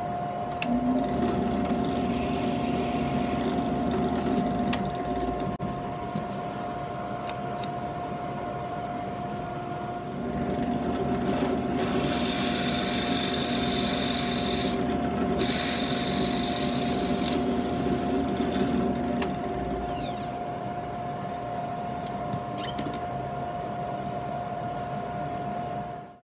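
Benchtop drill press running with a steady motor whine, its bit boring holes into a small strip of wood. There are two spells of cutting: a short one near the start and a longer one through the middle.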